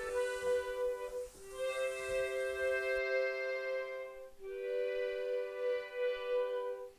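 Accordion playing long held chords, the chord changing twice, with a slight wavering on the main note.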